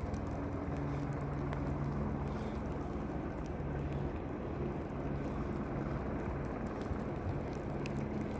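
A steady low engine drone, its pitch holding level, under an even rushing noise.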